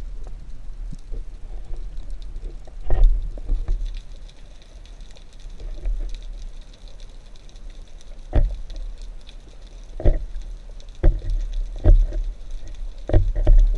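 Underwater sound picked up through a camera housing during a freediving spearfishing dive: a constant low rumble of water moving over the housing, with several dull knocks spread through it and a faint steady crackle higher up.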